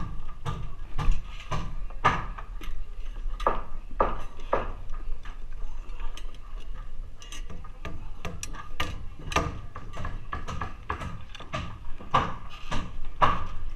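Steel hammer driving nails into wood framing: a run of sharp strikes, about two a second.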